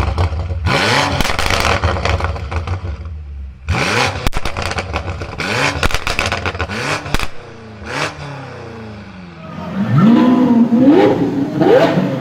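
Performance car engines revving and falling off throttle, with sharp exhaust pops and crackles on the overrun about four seconds in and again near eight seconds. Near the end an engine is blipped in quick rises of revs.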